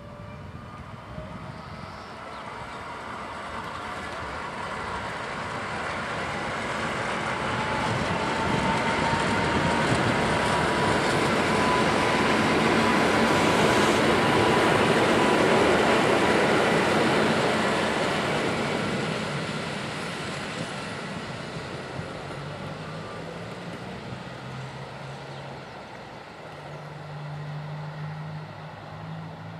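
An EN57AL electric multiple unit pulls away and passes close by, its wheels rumbling on the rails. A whine rises gently in pitch as it gathers speed, the sound is loudest about halfway through, then fades as the train recedes. A low steady drone comes in near the end.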